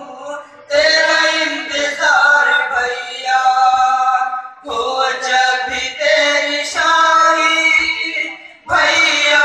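Unaccompanied voices chanting a nauha, a Shia lament in Urdu, in long sung phrases broken by short pauses. Faint low thumps keep a steady beat about once a second: chest-beating (matam) in time with the chant.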